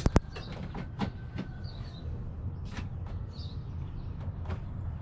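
Hand-tool knocks and taps at a housewrapped wall: two sharp knocks right at the start, then scattered lighter clicks and taps over a steady low hum. A small bird chirps a few times in the background.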